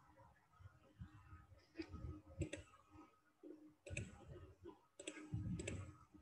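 Faint scattered clicks, about half a dozen of them spread unevenly (two close together about two and a half seconds in), over a low background hum from an open call microphone.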